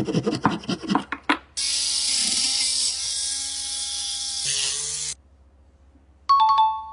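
Quick rubbing strokes on wood, as in hand sanding, for about a second. Then a steady hiss for about three and a half seconds. Near the end comes a short, bright two-tone chime like a ding-dong.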